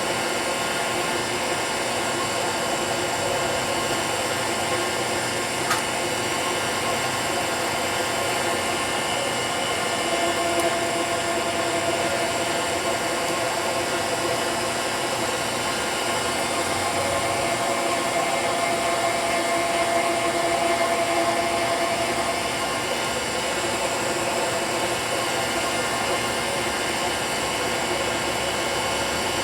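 ProtoTrak CNC mill running, its end mill cutting into an aluminium block: a steady whirring hum with a few held tones that swell a little around ten seconds in and again near twenty. One short sharp click about six seconds in.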